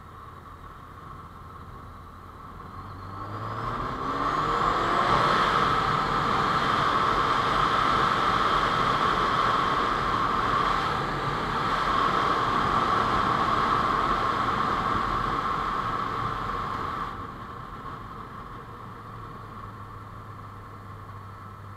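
Honda CBR600F4i sport bike's inline-four engine accelerating, its pitch rising a few seconds in. It then runs loud for about twelve seconds, with a brief dip near the middle, before the throttle closes and it drops back to a quieter run.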